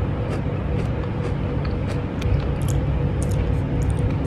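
A steady low rumble with a faint hum throughout, under scattered crisp clicks and crackles from chewing a chocolate-coated pistachio kunafa bar and handling its foil wrapper.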